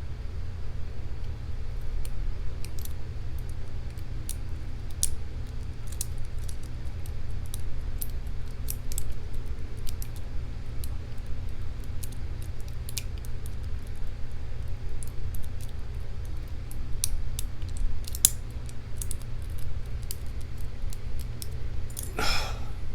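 Lock pick and tension wrench working a Paclock 200A padlock's pins: scattered faint metallic ticks and clicks at irregular intervals over a steady low hum. Near the end there is a short, louder burst of noise, just before the lock is reported open.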